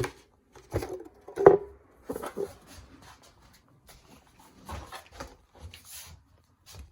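Irregular knocks and rustles of a cardboard toy bazooka being handled, the loudest about one and a half seconds in.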